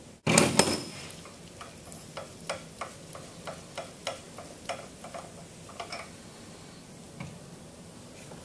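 Wrench work on a stainless steel pump's check-valve fitting: a loud metallic clatter just after the start, then a run of light ticks about two a second for several seconds as the fitting is loosened and turned off. A soft knock near the end as a metal part is set down on the table.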